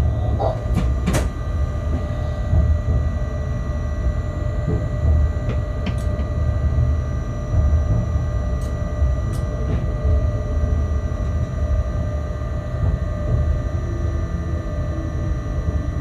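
Locomotive running slowly, heard from inside its cab: a steady low rumble with a constant hum over it. A few sharp clicks and knocks come near the start, again around five to six seconds in, and near the middle.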